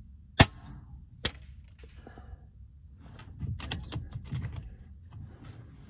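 A .22 RTI Prophet Performance PCP air rifle fires once, a single sharp crack, and under a second later a faint knock comes back as the slug strikes the target 140 yards out. A few seconds later come scattered soft clicks and rustling from handling the rifle.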